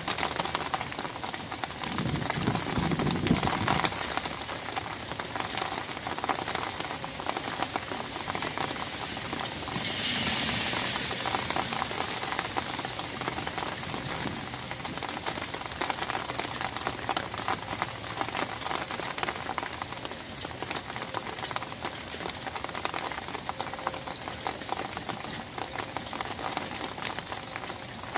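Rain falling on an open umbrella's fabric canopy, a dense steady patter of small drop hits. A low rumble comes about two seconds in, and a louder hiss of heavier rain lasts a couple of seconds from about ten seconds in.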